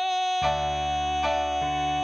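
A male voice holds one long, steady high note while keyboard chords with a piano sound come in underneath about half a second in, changing twice.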